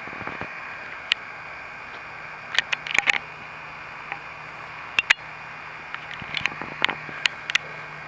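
Camcorder zoom motor humming low and steady over the recording's hiss while the lens zooms out, with scattered sharp clicks in small clusters.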